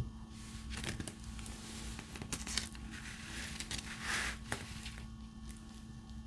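Light clicks and taps of a diamond-painting drill pen picking up and setting resin drills on the canvas, with a crinkling rustle about three to four seconds in.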